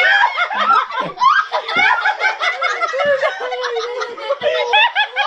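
Several people laughing loudly at once, their voices overlapping.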